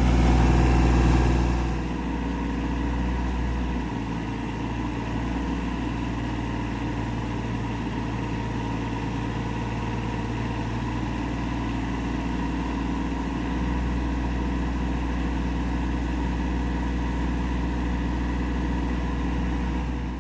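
Mini excavator's diesel engine running steadily under load as its hydraulic boom is raised to hoist a heavy beam, a little louder for the first couple of seconds and then even.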